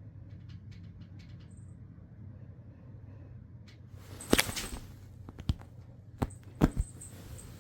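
A handful of sharp knocks and taps, the loudest about halfway through with a brief rustle after it, then four more spread over the next couple of seconds, over a low steady hum.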